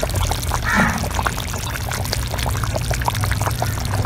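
Tamarind dried-fish curry boiling hard in a clay pot, with many small bubbles popping and plopping over a steady low hum. It is at a rolling boil, cooking off the raw smell of the chilli powder.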